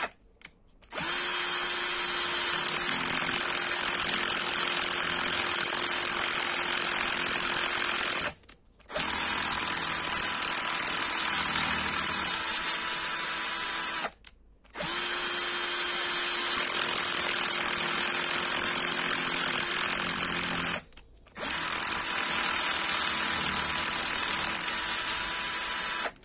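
A small electric motor runs steadily with a high whine. It cuts out abruptly for about half a second four times, roughly every six to seven seconds.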